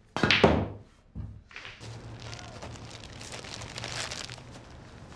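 A sharp clack of a pool cue striking the cue ball and the balls colliding, fading over about half a second. It is followed by a soft, steady rustling and crinkling.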